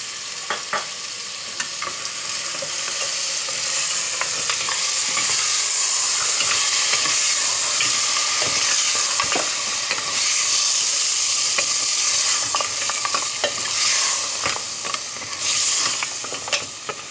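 Lamb pieces sizzling as they fry in oil and chili masala in a stainless steel pressure cooker pot, while a wooden spoon stirs and scrapes against the pot, with freshly added yogurt being fried off until its whiteness is gone. The sizzling grows louder about four seconds in.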